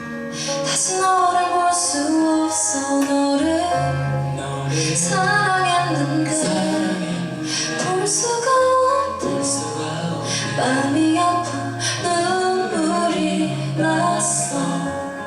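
A live band plays a pop ballad while a female voice sings the melody over sustained bass notes.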